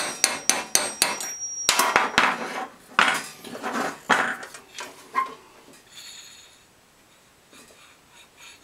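Hammer tapping on a steel socket to drive the vent fan down a blower motor's shaft: about ten quick metallic taps, four or five a second, in the first two seconds. Then a few looser knocks and clatter as the hammer is put down and the motor is picked up and handled.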